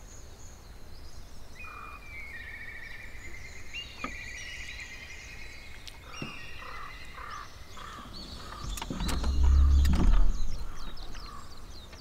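Songbirds singing and chirping, with a couple of faint clicks. About nine seconds in, a low rumble swells for a second or two, the loudest sound here, then fades.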